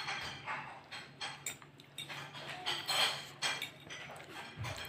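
Metal fork clinking and scraping against a glass plate in a scattered series of short clicks as food is picked up.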